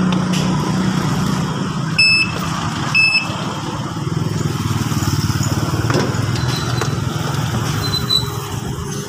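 A vehicle engine idling with a steady low rumble. Two short, high electronic beeps come about a second apart, around two and three seconds in.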